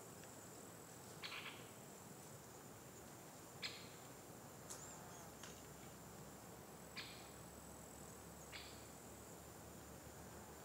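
Faint outdoor ambience: a steady high-pitched insect trill, with a handful of short bird calls scattered through it.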